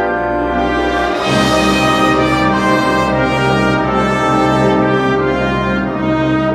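Wind orchestra playing a slow andante, with brass to the fore in held chords. About a second in the band swells louder and the bass moves to a new note.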